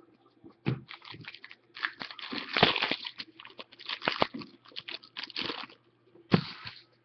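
A hockey trading-card pack's plastic wrapper being torn open and crinkled by hand, in a quick run of short crackling rips and rustles.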